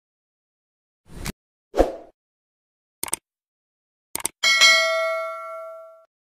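Like-and-subscribe animation sound effects: a few sharp mouse clicks and a dull thump, then a notification bell ding about four and a half seconds in that rings out for about a second and a half.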